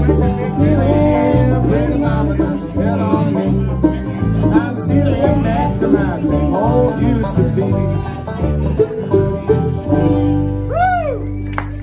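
Live bluegrass band with banjo, mandolin and guitars playing the closing instrumental bars, then ending on a held chord about ten seconds in that fades out. As the chord rings, a voice gives a short rising-and-falling whoop.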